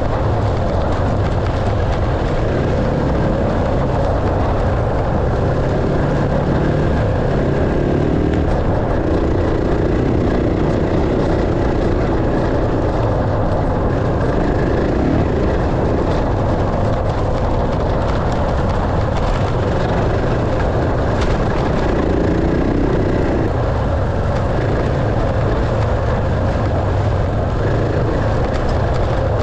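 Dirt bike engine running as the bike is ridden, its pitch rising and falling with the throttle.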